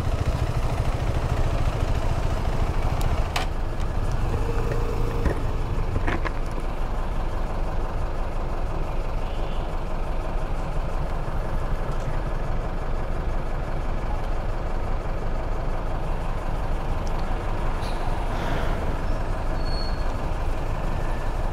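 Steady wind and road rumble of a KTM 390 Adventure motorcycle being ridden, as picked up by a rider-mounted microphone, with a couple of sharp knocks a few seconds in and a short steady tone around five seconds.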